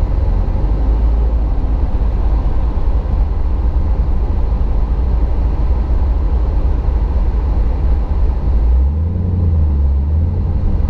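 Steady low rumble of road and engine noise inside a moving car's cabin; the low note shifts about nine seconds in.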